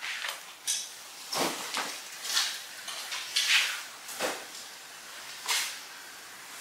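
A string of about eight short rustles and swishes from practitioners moving in keikogi and hakama on tatami mats, two of them with a soft thump, about a second and a half and four seconds in.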